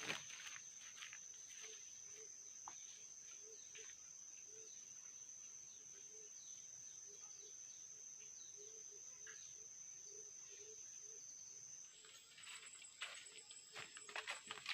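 Insects, crickets or similar, singing one steady high-pitched note that shifts slightly higher about twelve seconds in, with faint low notes repeating irregularly underneath. In the last few seconds come crackles and rustling, like something moving through dry leaves and twigs.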